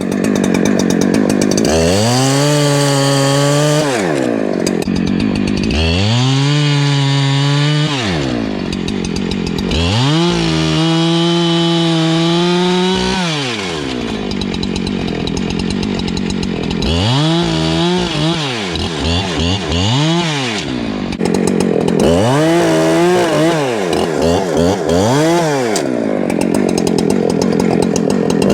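Husqvarna chainsaw run up to full throttle and let back down several times as it cuts through a fallen tree trunk. The longer full-throttle stretches come in the first half, and the shorter, wavering revs come in the second half.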